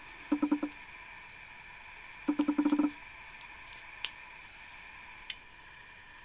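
Woodland Scenics rubber rock mould squeaking as it is flexed and peeled away from a plaster rock casting. There are two short stuttering squeaks, a brief one just after the start and a longer one about two seconds in, then a couple of faint ticks.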